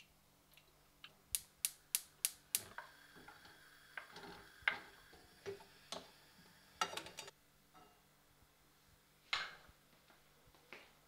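Kitchen handling sounds at a frying pan: a quick, even run of five sharp clicks about a second in, then scattered soft taps and knocks as vegetable slices are laid one by one into the pan, with one louder knock near the end.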